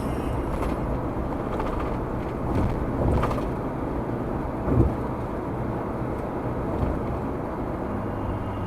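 A car driving at speed: steady road and tyre noise with engine rumble, a couple of swells around three seconds in and a short sharp thump near five seconds.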